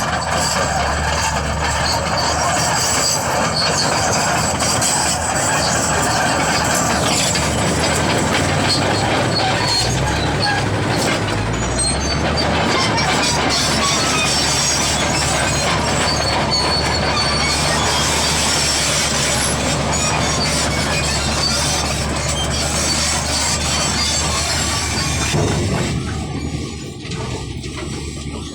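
Bulldozer's diesel engine working steadily with its steel crawler tracks clanking and squealing, easing off near the end.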